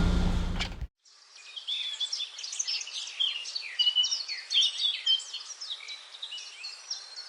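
A vehicle engine running cuts off suddenly about a second in, followed by a chorus of many small birds chirping and twittering.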